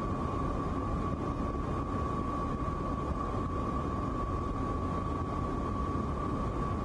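Steady cabin noise inside a U.S. Air Force C-17 transport's cargo hold: a dense, even drone of engines and airflow, with a thin steady whine over it.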